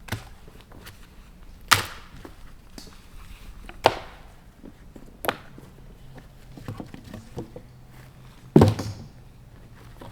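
Sharp knocks of something hard striking wood, five of them at uneven gaps of one to three seconds, the loudest near the end with a short rattling tail.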